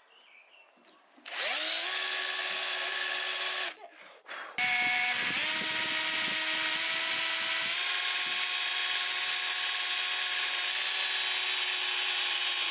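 Cordless combi drill pre-drilling pilot holes into MDF, its motor whining steadily. One short run starts a little over a second in and stops briefly around four seconds. A longer steady run follows to the end, stepping up slightly in pitch.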